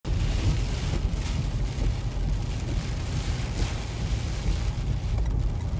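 Car driving on a rain-soaked road, heard from inside the cabin: a steady low rumble under a hiss of tyres and rain on wet pavement that swells and fades a few times.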